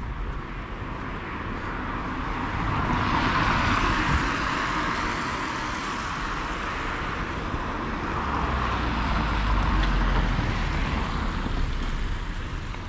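Road traffic going by, with tyre noise that swells twice as vehicles pass.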